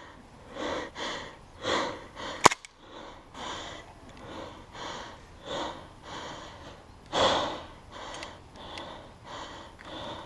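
Rapid, heavy breathing close to the microphone, a noisy in-and-out breath about every half second to second, with one sharp crack about two and a half seconds in.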